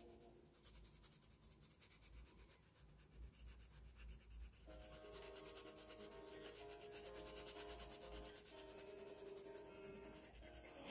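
Prismacolor coloured pencil rubbing on kraft paper in fast back-and-forth shading strokes, a soft, continuous scratchy rasp. Soft background music comes in about five seconds in.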